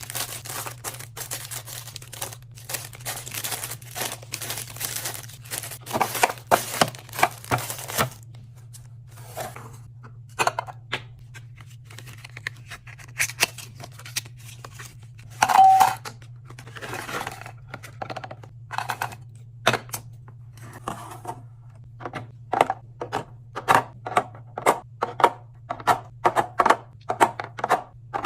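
Plastic food packaging being handled during a fridge restock: dense crinkling and tearing with small clicks and taps as items are unpacked and set down. A short beep sounds about halfway through, over a steady low hum.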